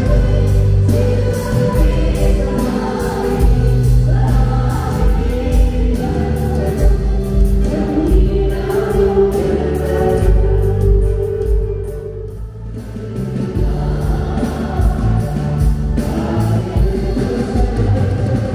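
Group of voices singing a Christian song over amplified band music with a heavy bass beat; the music drops briefly about twelve seconds in.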